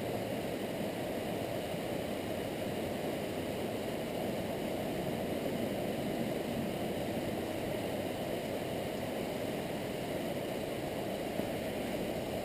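Low, steady rush of river water flowing over rocks in riffles.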